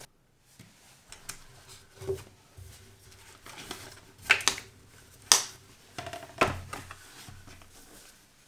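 Cloth gun sock rustling and sliding as it is pulled off a bolt-action rifle, with scattered sharp clicks and taps of handling, the loudest a little past four and five seconds in.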